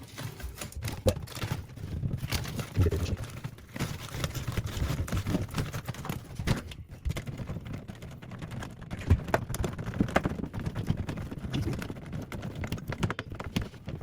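Irregular knocks, clicks and rustling from hands-on work with dryer vent ducting and tools.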